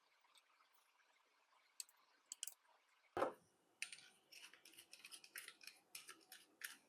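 Hand work on a small part: one knock about three seconds in, then a quick run of short, sharp strokes, about three to four a second.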